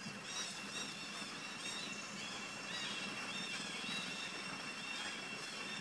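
Tropical forest ambience: a steady high insect drone with a bird's short, wavering calls repeated through it.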